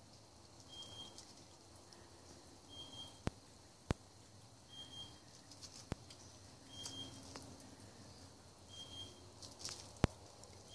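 Quenda (southern brown bandicoot) nibbling food from a hand: faint, crisp chewing crackles in short bouts. Several sharp clicks stand out above the chewing, and a short high chirp repeats about every two seconds.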